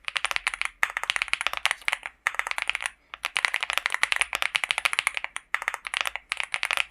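Fast typing on a LEOBOG Hi75 mechanical keyboard with Akko V3 Cream Black Pro linear switches: rapid runs of sharp key clacks broken by brief pauses, about four of them.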